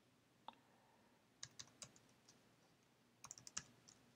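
Faint keystrokes on a computer keyboard: a single key about half a second in, a few spaced taps around the middle, and a quick run of about six keys near the end.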